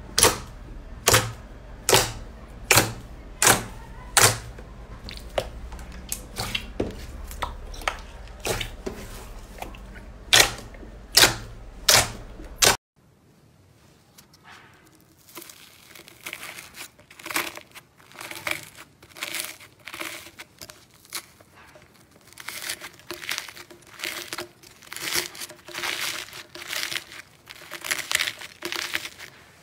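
Fingers pressing into a clear blue glitter slime, making sharp pops about one and a half times a second over a low hum. About 13 seconds in, this gives way to a dense crunchy crackling as fingers break up the dried, crusted surface of an iceberg slime.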